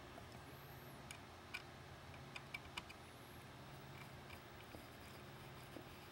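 Faint scattered clicks and ticks of a hand screwdriver turning a screw into a metal floodlight housing, over a low steady hum.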